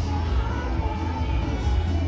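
Parade music with a heavy bass line, playing loud and steady as a parade float passes.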